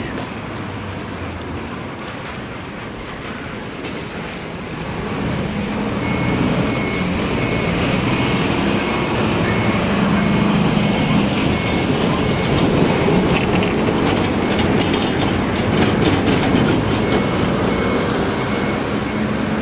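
Doctor Yellow, the 923-series Shinkansen inspection train, running on the rails, its sound growing louder from about five seconds in. A high, evenly repeating beep sounds from about six seconds in.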